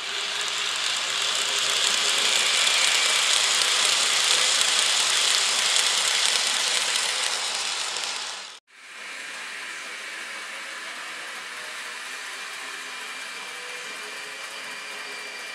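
Model train running on the layout's track: a steady whirring rattle of the locomotive's motor and wheels on the rails. It cuts off abruptly about eight and a half seconds in and comes back quieter.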